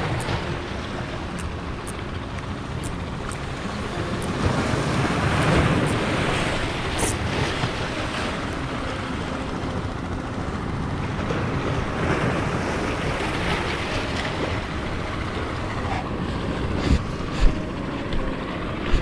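Waves washing against rocks at the water's edge, with wind buffeting the microphone; the wash swells louder about five seconds in. A couple of sharp knocks near the end.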